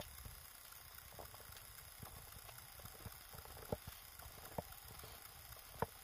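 Footsteps crunching in fresh snow, about six soft steps roughly a second apart, the sharpest near the end. The sound is muffled by the action camera's waterproof case.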